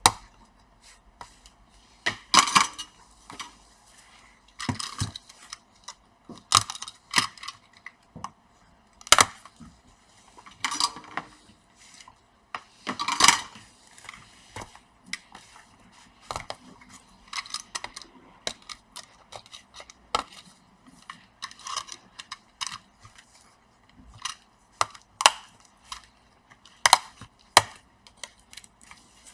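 Irregular sharp clicks, cracks and short scrapes of plastic being cut and pried with a blade as a bonded keyboard is worked free of a laptop's plastic upper case, the two loudest cracks about two and a half seconds and thirteen seconds in.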